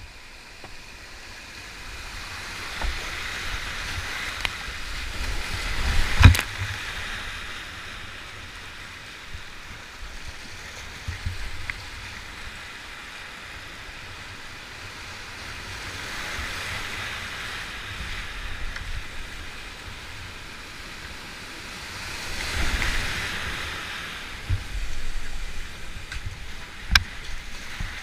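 Whitewater rapids rushing around a kayak as it runs a series of drops, swelling and easing as the boat goes through the falls. A few sharp knocks stand out: the loudest about six seconds in and another near the end.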